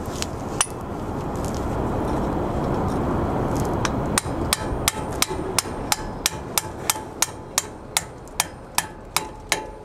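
Hammer striking a driver to knock a brass bushing into the brake camshaft bracket of a SAF trailer axle, in a steady run of sharp metallic blows about three a second from about four seconds in, driving the bushing home until it seats. A steady rushing noise comes before the blows.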